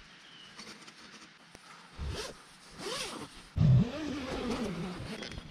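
A tent's door zipper being pulled open in several rasping strokes, starting about two seconds in, with a heavy bump of handling noise partway through.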